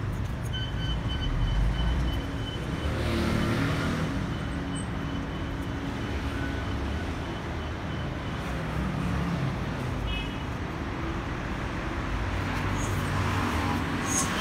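Road traffic noise: a steady rumble of passing vehicles that swells louder a couple of times.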